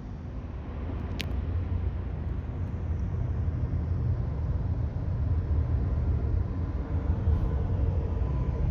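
Jet airliner engines rumbling, growing steadily louder as the aircraft draws nearer, with faint steady engine tones emerging in the second half. A single sharp click about a second in.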